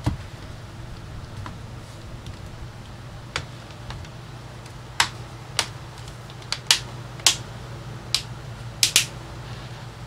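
Plastic snap-fit tabs of a Samsung RF511 laptop's bottom case clicking into place as the case is pressed down along its edges: about ten sharp single clicks, a few in the first half and most of them close together in the second.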